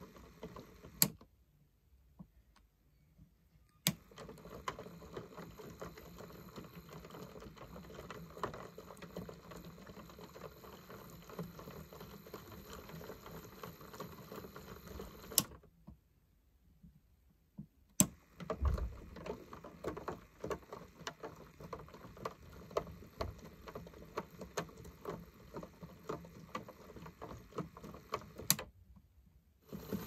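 Bosch front-loading washing machine in its main wash: the drum tumbles the wet laundry through the water with sloshing and light ticking. It stops for a couple of seconds twice, each stop starting with a sharp click.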